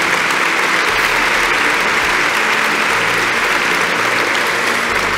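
A large audience applauding steadily, the clapping dense and even throughout.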